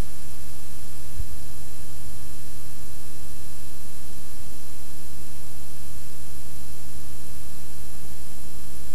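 Steady hum and hiss of blank videotape playing past the end of the recording, a buzz with many even overtones over a constant static hiss. One short low pop about a second in.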